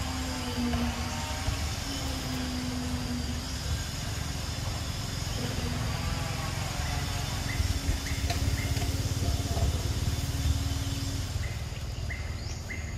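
An engine running steadily, with a low rumble and a constant hum. A few short, high rising chirps come in over it in the last few seconds.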